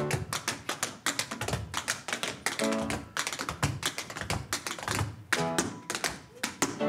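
Tap shoes clicking in fast rhythmic runs of taps on a wooden stage, over backing music with short notes about every couple of seconds.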